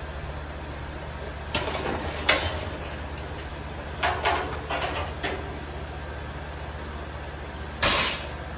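Burning charcoal dumped from a metal chimney starter into the smoker's charcoal basket: several bursts of coals clattering and scraping against steel, the loudest a short one near the end, over a steady low hum.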